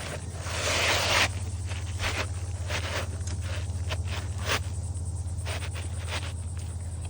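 Asphalt roof shingle being slid into place under the shingles above it: a long scrape about a second in, then a run of short scrapes and taps as it is worked in, over a steady low hum.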